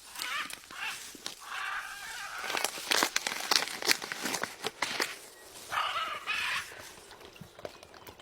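A parrot giving harsh, rasping squawks, three of them: one at the start, one about two seconds in and one about six seconds in. In between, about two and a half to five seconds in, comes a run of sharp clicks and taps, the loudest sounds.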